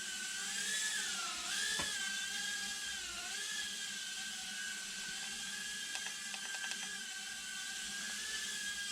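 Eachine E010 micro quadcopter's four tiny 67,000 rpm motors and propellers whining in a hover, the pitch wavering gently up and down as the throttle corrects.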